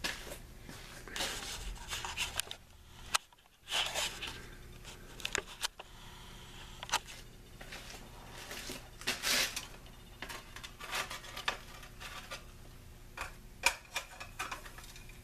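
Scattered handling noises: irregular clicks, scrapes and rustles as the camera and a metal cup on a small stove are moved about on a workbench, with a brief dropout about three seconds in.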